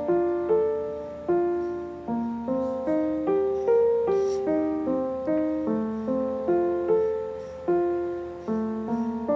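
Background music: a light melody of single struck notes, each one dying away, about two or three a second.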